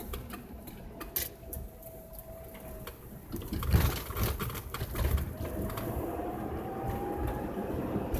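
Inside a moving car: low road and engine rumble with scattered light ticks, and a few heavier low thumps about four and five seconds in.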